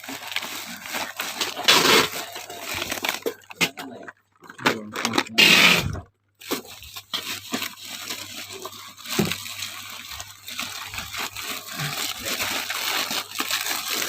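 Packaging being handled during an unboxing: irregular rustling and crinkling, with two louder bursts about two and five seconds in.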